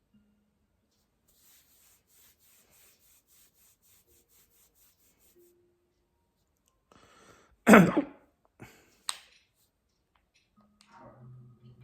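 A person hiccuping: one loud, sudden hic about eight seconds in, followed by two shorter, quieter throat sounds within the next second and a half. Faint quick ticking, about four a second, runs through the first half.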